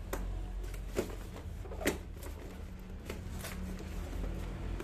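Hands opening a cardboard hair-clipper box, lifting off the lid: light scrapes and taps of the cardboard, with sharper knocks about one and two seconds in, over a steady low hum.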